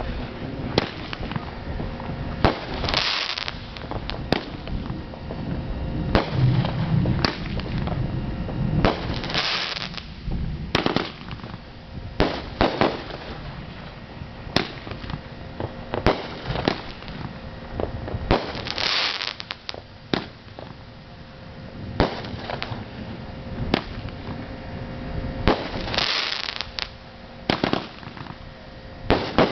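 Aerial fireworks going off: a long run of sharp bangs at irregular intervals. Several hissing, crackling spells of about a second each break in at intervals, the last one starting near the end.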